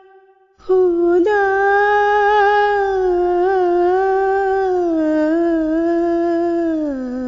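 A woman humming one long note of a devotional tune, with no accompaniment. After a short pause it starts, wavers slightly as it slowly sinks, and steps down to a lower note near the end.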